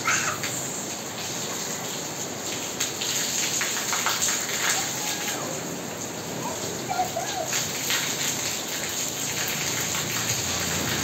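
Steady rain falling and splashing on a wet tiled courtyard, a constant hiss.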